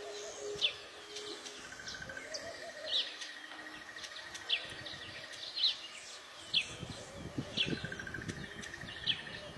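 Weaver birds chattering in a string of short, sharp chirps, irregular at about one or two a second, with a thin buzzy trill coming and going beneath them. Faint low crackling joins from about two-thirds of the way in.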